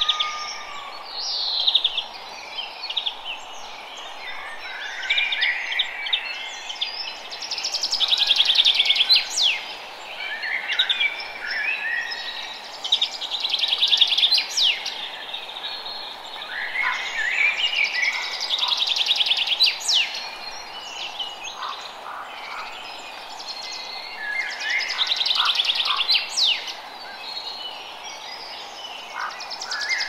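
Several songbirds singing and calling, with a rapid, buzzy trill that recurs every five or six seconds, over a steady background hush.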